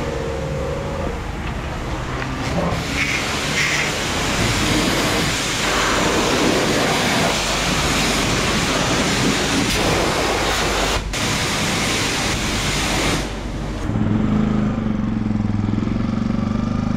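High-pressure car-wash lance spraying water onto the motorcycle's wheel and underside, a loud steady hiss that starts about three seconds in and stops about thirteen seconds in. Near the end, the Yamaha WR 125 X's 125 cc single-cylinder four-stroke engine runs as the bike pulls away.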